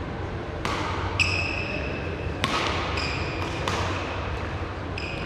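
Badminton rally: three sharp racket strikes on the shuttlecock about a second and a half apart, with short high squeaks of court shoes on the hall floor between them.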